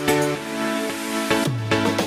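Background music: an electronic track with sustained chords, a hissing sweep over them, and a bass note that slides down about three-quarters of the way through.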